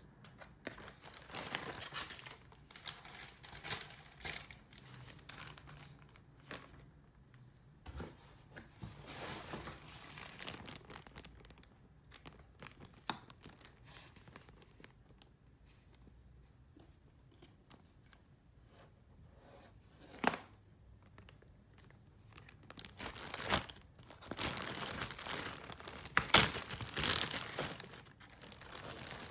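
Clear plastic bag crinkling as it is handled, in irregular bursts with a louder stretch near the end, and a few sharp clicks in between.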